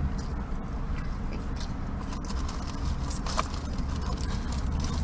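Steady low rumble of vehicles outside, heard from inside a parked car whose own engine is off, with a few faint scattered clicks and rustles.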